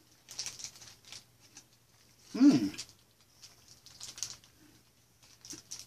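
A man chewing gummy candy, with soft wet mouth clicks and crackles, and one short voiced "mmm" about two and a half seconds in.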